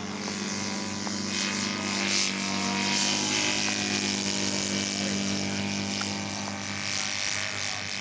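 Radio-control scale model airplane's engine and propeller running at a steady pitch, growing a little louder about two seconds in, then easing slightly.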